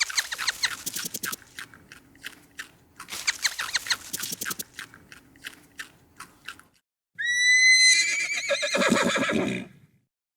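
Horse whinnying about seven seconds in: a loud call that starts on a clear high note, then breaks into a rougher, pulsing sound. Before it come two stretches of rapid clicking pulses.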